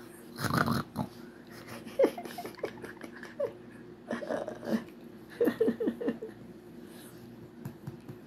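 Small dog grunting and snorting in play while mouthing a hand, in several short bursts with breathy snuffles between.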